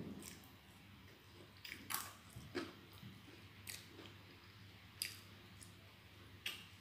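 A person chewing potato fries close to the microphone, with sharp wet mouth clicks and lip smacks every second or so.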